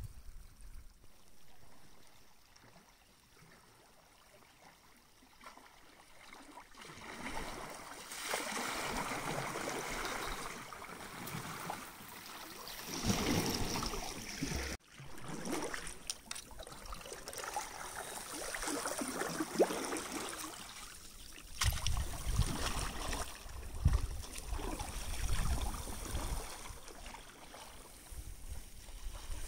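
River water rushing and splashing along a kayak's hull on a fast current. It is quiet for the first few seconds, grows louder from about seven seconds in, and rises and falls in swells, with low rumbles on the microphone near the end.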